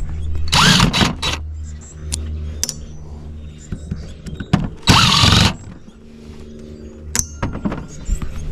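A power driver backing out two screws from a metal housing: two short, loud whirring bursts about four seconds apart, with small clicks and handling noise between them.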